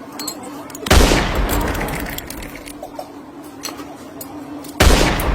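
Two loud blast sound effects about four seconds apart, each starting suddenly and dying away slowly, over a steady low hum and scattered faint clicks.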